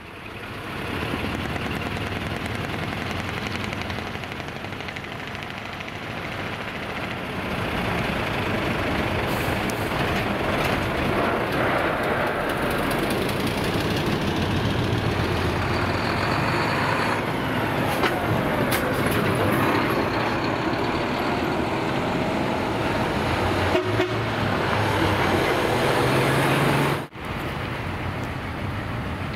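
Heavy decorated trucks (dekotora), built with split-manifold exhausts, pulling out and passing: loud, rough diesel engine and exhaust noise that builds up over the first several seconds, with a tone that falls in pitch as one goes by about two thirds of the way through. The sound drops out abruptly near the end, then resumes.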